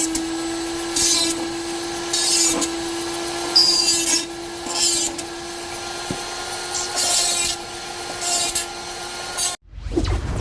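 Flex shaft rotary grinder running with a steady whine, with about seven short bursts of harsh grinding, roughly one a second, as the bit is pressed against the work. It cuts off suddenly near the end, and a whoosh begins.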